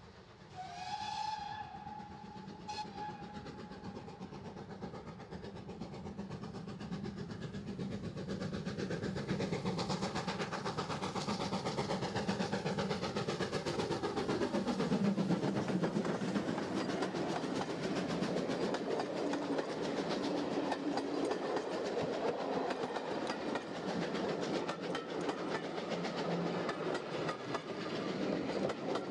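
Great Western Manor-class 4-6-0 steam locomotive 7828 Odney Manor gives one whistle blast about a second in, then approaches under steam and passes close by. Its sound drops in pitch as it goes past around the middle, followed by the steady rattle and clickety-clack of its coaches over the rails.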